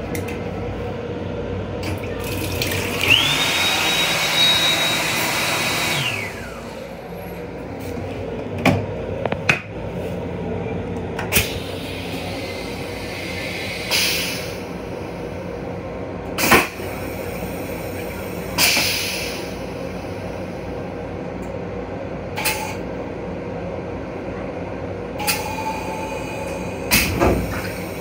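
M7 railcar restroom fixtures in use over a steady train hum. The sink unit's hand dryer blows for about three seconds with a high steady whine. Short water spurts and clicks follow, and the stainless-steel toilet flushes near the end.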